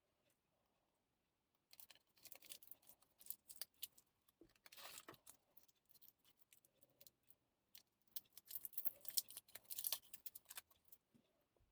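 Quiet, irregular clicks, scrapes and rustles of small objects being handled, coming in two busy stretches: one starting about two seconds in and one from about eight seconds.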